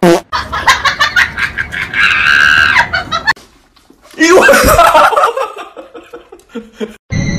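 A person laughing hard in rapid bursts, rising into shrieks, cutting off suddenly about three seconds in; after a short gap, another loud voice-like cry.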